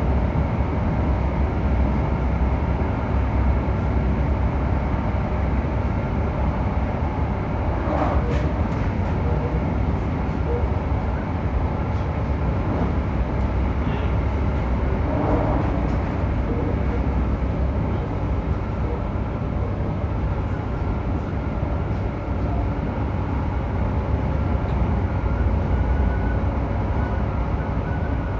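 Running sound inside a JR Hokkaido 731-series electric train car (MoHa 731-109) cruising at steady speed: a heavy low rumble with a steady motor and gear hum. The roar comes from a faulty traction motor on one bogie, an abnormal noise that sounds like an old nose-suspended (tsurikake) motor drive.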